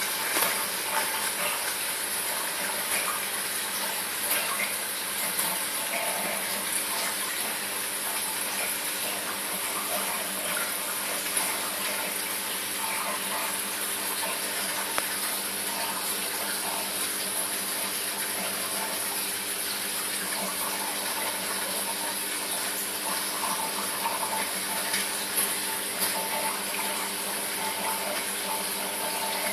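Running water in a saltwater reef aquarium: a steady splashing and trickling of circulating water, with a faint steady hum underneath.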